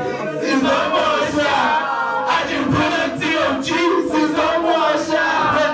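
A crowd of voices shouting and chanting together, with music underneath.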